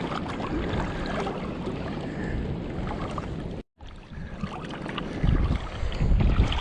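Outgoing tidal current running over shallow sand flats, with wind buffeting the microphone, heaviest in gusts near the end. The sound cuts out briefly about halfway through.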